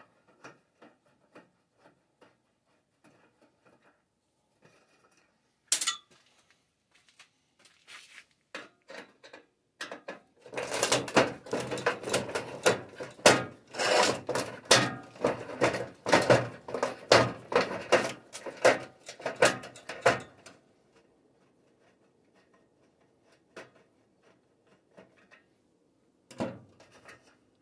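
Screwdriver backing out the end screws of a metal fluorescent light fixture. Scattered small clicks and taps come first, with a sharper click about six seconds in. Then comes about ten seconds of rapid, loud metallic clicking and rattling while a screw is turned out, and a few faint taps near the end.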